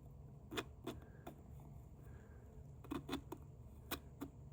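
Snowman maze puzzle box being twisted and pushed by hand, its parts giving a series of short sharp clicks and knocks as the pin moves through the maze, three in quick succession about three seconds in.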